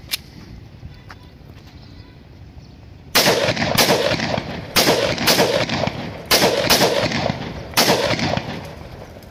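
About seven single shots from a 30 bore (7.62×25 mm Tokarev) firearm, beginning about three seconds in and spaced unevenly. It is test-firing a locally made drum magazine on single fire, each crack followed by a short echo.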